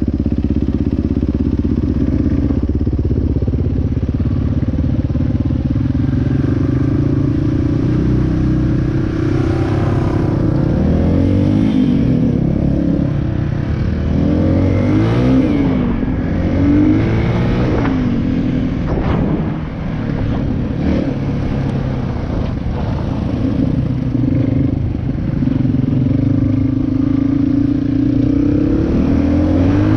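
Dirt bike engine running, revved up and down over and over as the bike is ridden, with a few sharp knocks and clatter partway through.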